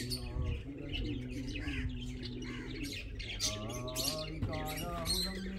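Small birds chirping repeatedly in quick high notes. Underneath runs a lower, held and wavering pitched tone.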